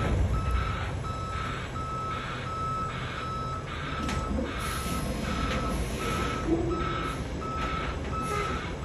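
Dump truck's backup alarm beeping steadily, about twice a second, over the low running of the truck's engine.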